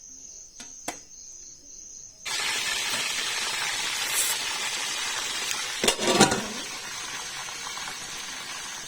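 A few light clicks, then about two seconds in a sudden loud sizzle as the turned fish goes back into the hot coconut oil. The frying hiss runs steadily on, with a brief clatter of a utensil near the middle.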